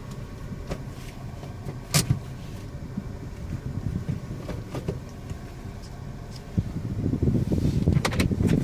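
Car driving: steady low road and engine rumble with a faint steady whine above it, the whine the driver hears when turning right. A sharp click about two seconds in, and the rumble grows louder near the end.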